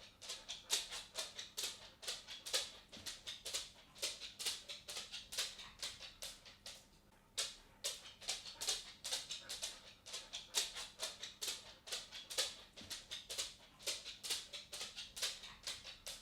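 Cat walking: a quick, uneven run of light ticking footsteps, several a second, with a short pause about halfway through.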